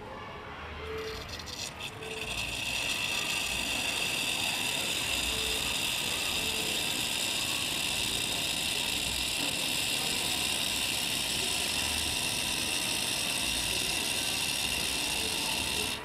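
Espresso machine's wand opened onto the drip tray, hissing loudly and steadily from about two seconds in after a few clicks, then cutting off suddenly at the end.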